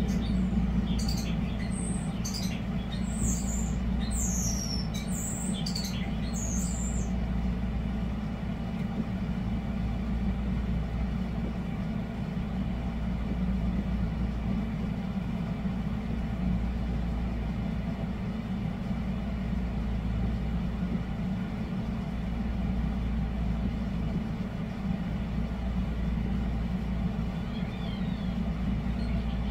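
Air conditioner running with a steady low hum. Starlings sing over it for the first several seconds with high whistles and chirps, then stop.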